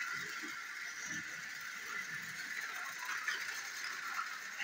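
Two battery-powered toy train engines running on plastic track, a steady high whir of their small motors and wheels.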